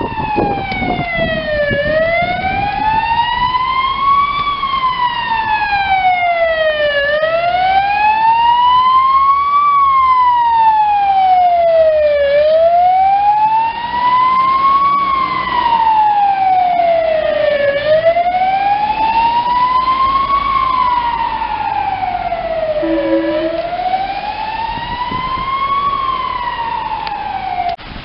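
Emergency vehicle siren sounding a slow wail, its pitch sweeping up and down about every five seconds, five times over, and cutting off near the end.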